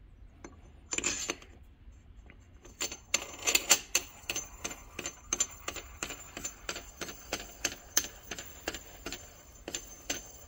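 Aluminium coilover spring seat spun by hand down the threaded shock body, giving a run of quick metallic clicks, a few a second, with a faint high ring. A short scrape of metal parts comes about a second in.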